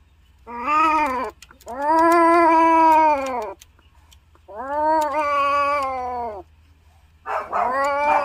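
Siamese cat yowling during mating: four long, drawn-out caterwauls, each arching up and down in pitch, the longest about two seconds.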